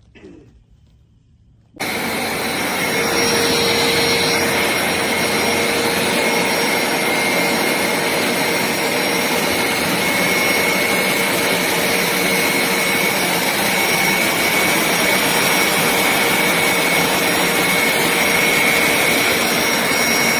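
Hoover SmartWash Pet carpet cleaner running: a loud, steady suction-motor rush with a thin high whine over it. It starts suddenly about two seconds in and cuts off abruptly near the end.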